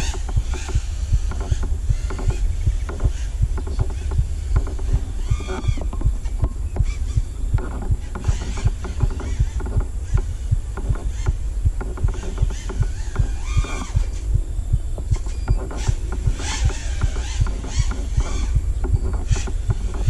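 FPV racing quad's Emax 2306 motors and Dalprop Fold 5.1-inch folding propellers whining in flight, the pitch rising and falling now and then as the throttle changes. Under it runs a steady low throb that pulses about three times a second.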